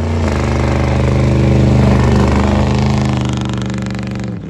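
Cammed 6.0-litre V8 of a Chevy Silverado drag truck held at high revs under heavy throttle, its rear tires spinning through snow; it swells as the truck passes, then fades. The engine note dips sharply near the end.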